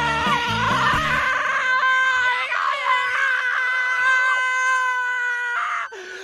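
Children screaming with excitement. One long high scream is held at a steady pitch for about four seconds and cuts off shortly before the end, with background music with a beat under the first second or so.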